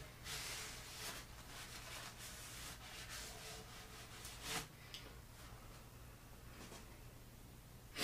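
Faint handling noises from working on grinder parts: soft rubbing with a few light clicks and a knock about four and a half seconds in, and a sharper knock at the very end, over a low steady hum.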